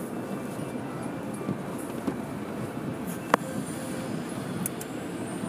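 Automatic car wash machinery running steadily as soap foam is sprayed and spread over the windshield, heard from inside the car's cabin. A single sharp click sounds a little over three seconds in.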